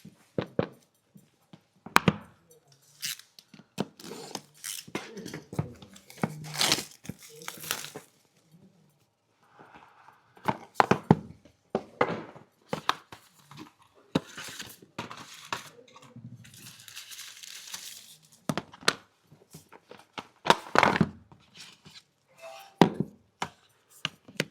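Smartphone retail box being unboxed by hand: plastic film and paper packaging tearing and crinkling, with sharp clicks and light thunks of cardboard and parts being handled, in short irregular bursts separated by brief pauses.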